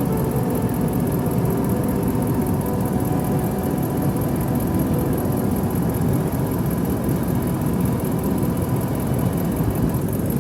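Truck engine idling steadily with the air conditioning running.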